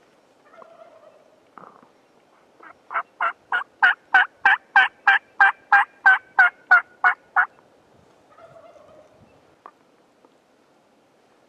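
Wild turkey yelping: a run of about fifteen evenly spaced yelps, about three a second, lasting four to five seconds, the first few quieter. Faint scuffing shortly before and after the run.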